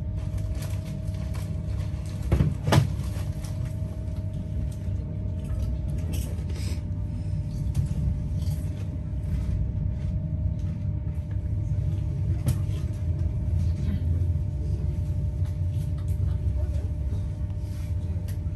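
Passenger train running at speed, heard from inside the carriage: a steady low rumble of wheels on rails with a faint steady hum. A few light clicks, and one louder knock about two and a half seconds in.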